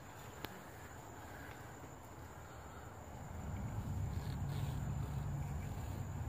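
Quiet night-time outdoor ambience: a thin, steady, high insect trill over faint hiss. A low rumble builds up about three and a half seconds in and continues to the end.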